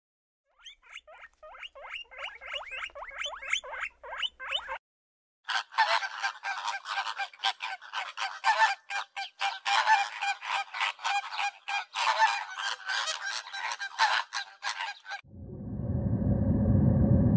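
Birds calling rapidly, first one run of quick repeated calls, then after a short break a dense chorus of many birds calling over one another. Near the end the calls stop and a steady low rumble fades in.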